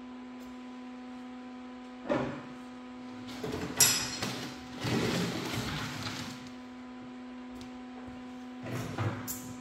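Irregular knocks, clicks and scraping of objects being handled: one sharp knock about two seconds in, a clatter a little later, then a longer scraping rustle, and more knocks near the end. A steady electrical hum runs underneath.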